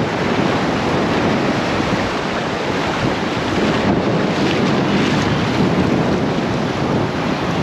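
Ocean surf washing and breaking around a wader in shallow water, steady throughout, with wind buffeting the microphone.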